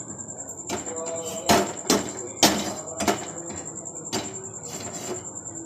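Sharp knocks and clatters of kitchen things being handled at a gas stove with an aluminium kadai, about seven of them, the loudest about one and a half and two and a half seconds in. A steady high trill runs underneath.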